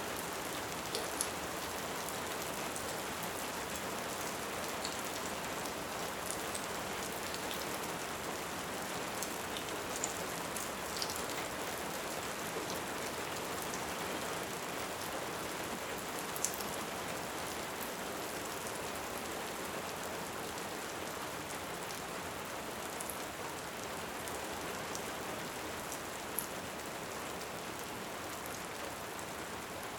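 Steady heavy rain, an even hiss, with a few sharp clicks scattered through it.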